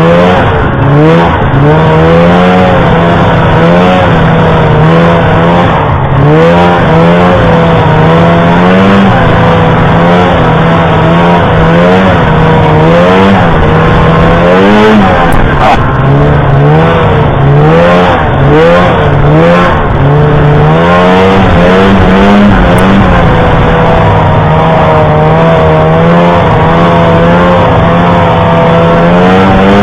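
Snowmobile engine running hard under load, loud, its pitch rising and falling every second or two as the throttle is worked.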